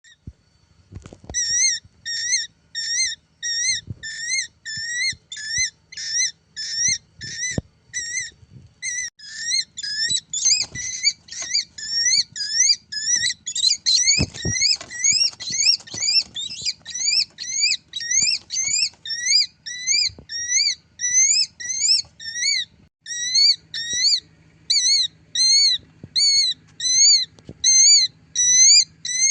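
A bird calling insistently, short shrill rising-and-falling whistled calls about two a second, on and on without a break.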